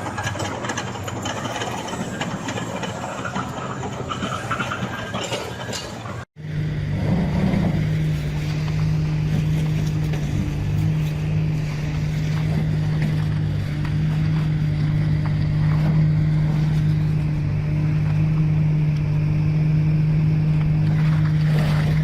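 Heavy machinery working with clattering mechanical noise, then, after a sudden cut about six seconds in, a diesel engine running with a steady low drone.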